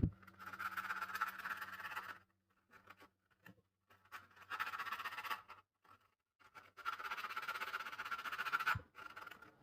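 Abrasive being rubbed quickly back and forth over the contactor plunger's magnetic core, in three short spells of fast rasping strokes. It is scouring off the deposited layer that keeps the starter's contactor from releasing when the off button is pressed.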